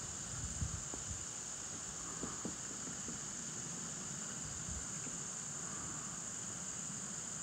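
Soft breathing of a person close to the microphone, a slow breath every few seconds, over a steady high-pitched hiss and a few faint knocks.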